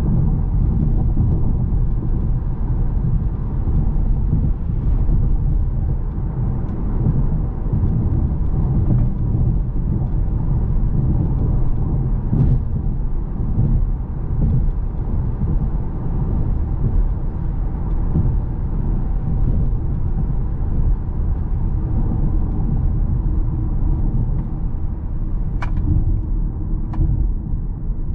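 Audi A6 heard from inside the cabin while driving at a steady pace: a steady low rumble of engine and tyre noise. A few sharp clicks come near the end.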